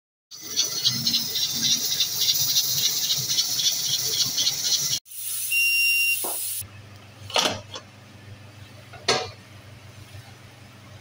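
Aluminium pressure cooker venting steam at its weight valve: a loud, rapidly pulsing hiss, then after a break a shorter hiss with a thin whistle in it. Later, two sharp knocks against the pot.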